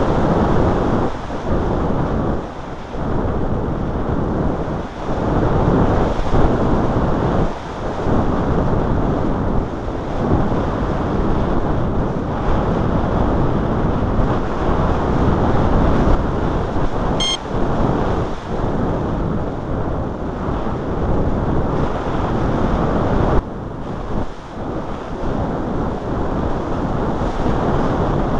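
Wind on the microphone: a loud, continuous rushing rumble that gusts up and down. A brief high-pitched blip sounds once about two-thirds of the way through.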